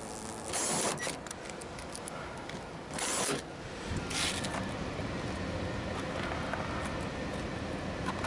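Cordless drill spinning screws out of a rooftop HVAC unit's sheet-metal panel in two short bursts, with a smaller third burst just after. A steady low rumble comes in about four seconds in.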